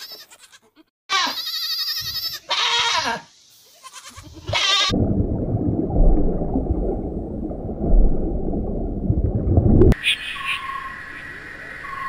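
Goats bleating, several quavering calls in the first few seconds. These are followed by about five seconds of loud, low rumbling noise with a couple of thumps, and fainter short high chirps near the end.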